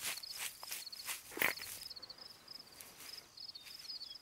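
Crickets chirping in a steady pulsing trill, with a few short rustling scrapes in the first two seconds, the loudest about a second and a half in.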